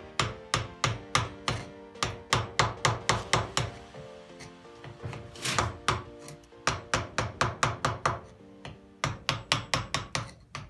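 Background music with a steady percussive beat of about three to four strokes a second over sustained chords.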